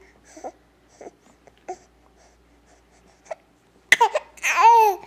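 Baby vocalizing: a few soft grunts, then about four seconds in a couple of short loud bursts and a long drawn-out coo that rises and falls in pitch.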